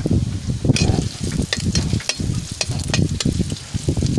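Chopped ginger and garlic frying in hot oil in a wok, sizzling with many sharp pops and clicks, while a metal spatula scrapes and taps against the pan as they are stirred.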